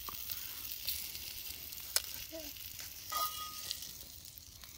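Herb butter sizzling in a hot cast-iron skillet over a wood fire, the sizzle slowly fading, with a sharp click of the metal spatula against the pan about two seconds in.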